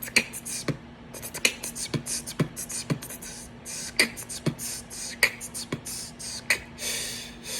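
Human beatboxing: a steady beat of deep kick-drum thumps alternating with sharp snare and hi-hat clicks made with the mouth, with a drawn-out hiss about seven seconds in.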